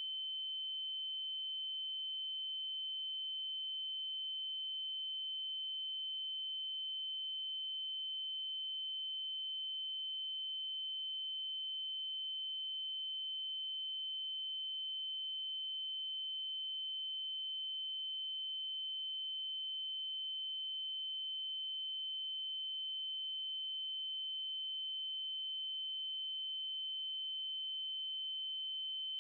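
Synthesised 3072 Hz triangle-wave tone: a single high, unchanging pitch held steadily.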